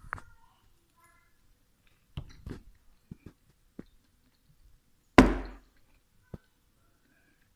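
Eating sounds: a metal fork clicking and scraping against a ceramic bowl in scattered short taps, with faint mouth sounds. About five seconds in comes one loud knock that dies away over about half a second.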